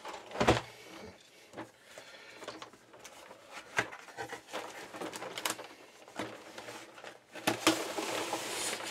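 Cardboard box being handled and opened on a wooden table: a knock about half a second in, then scattered taps and rubbing of cardboard, and a longer rustling scrape near the end as the lid is slid off the base.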